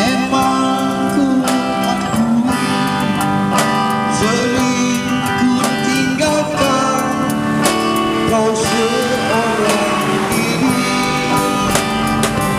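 Live band music with guitars to the fore and a regular beat.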